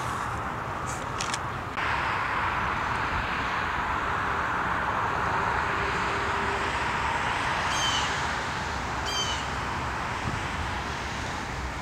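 Steady outdoor background noise, a constant hiss that gets a little louder about two seconds in, with two short bird calls about eight and nine seconds in.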